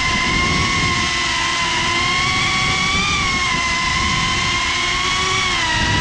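GEPRC CineLog 35 FPV drone's motors and propellers whining steadily, the pitch rising slightly about three seconds in and dipping near the end as the throttle changes, over a rough low rumble.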